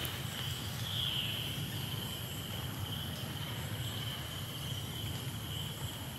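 Insects in the surrounding forest chirring in a steady, high, unbroken drone, with a low rumble beneath.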